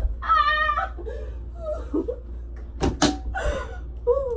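A person's voice calling out in several short, pitched exclamations. Two sharp knocks land close together about three seconds in, over a steady low hum.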